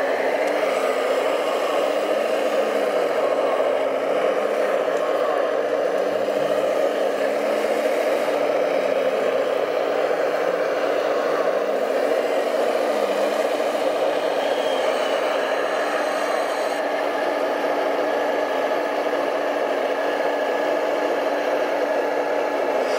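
Radio-controlled hydraulic excavator's pump and motors whirring steadily, the pitch dipping and rising again and again as the boom and bucket are worked through heavy mud.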